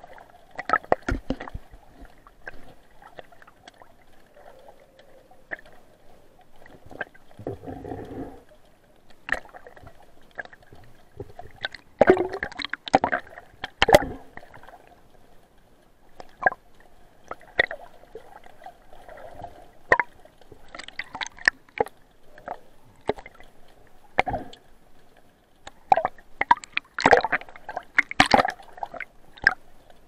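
Underwater sound picked up by an action camera in its waterproof housing: muffled gurgling and sloshing water with many irregular sharp clicks and knocks as the swimmer holding it moves.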